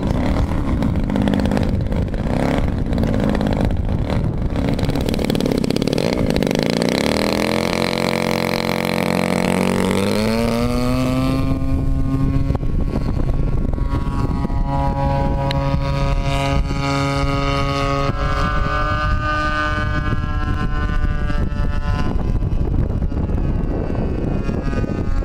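The 30cc DLE two-stroke petrol engine of a quarter-scale Cessna 182 radio-controlled model plane running. Its pitch sags and then rises sharply about ten seconds in as the throttle is opened for the takeoff run. After that it holds a steady high drone as the plane climbs away.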